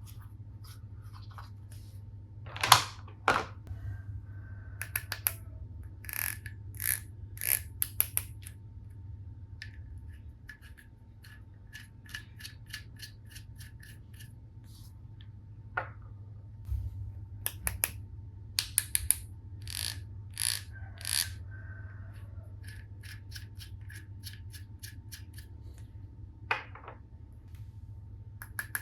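Plastic toy tool pieces being handled, giving clusters of sharp clicks and taps with a louder knock a few seconds in and a quieter spell midway. A steady low hum runs underneath.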